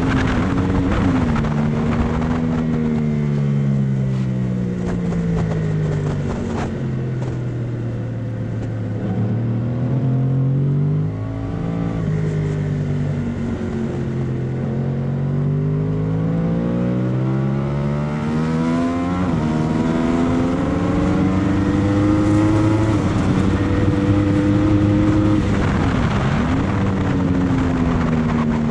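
Yamaha R1 sportbike's inline-four engine at racing speed. Its pitch sinks for several seconds as the bike slows, then climbs again several times, each climb cut by a quick drop as the rider changes up a gear.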